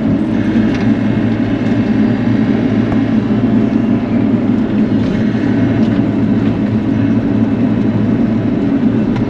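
Bobcat E42 mini excavator's diesel engine running steadily under working load, with a few faint cracks from the brush and small trees it is clearing.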